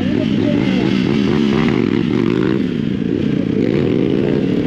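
Motorcycle engine running steadily while the bike is ridden, its pitch wavering only slightly.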